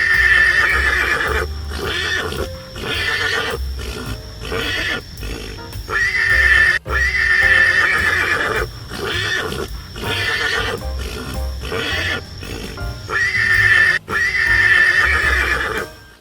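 Donkey braying: long runs of rasping, see-sawing hee-haw cries, in three loud bouts about six seconds apart.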